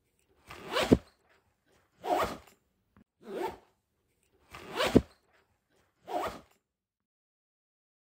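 Backpack zipper pulled back and forth in five short rasping strokes, a little over a second apart; the strokes stop about two-thirds of the way through.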